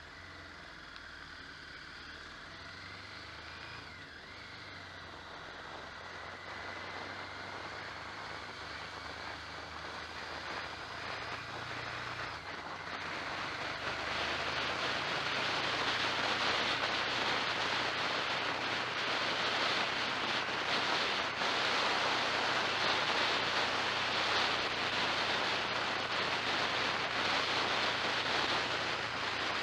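Onboard vehicle sound on the road: a faint engine note under a rushing wind and road noise that grows steadily louder, heaviest from about halfway through.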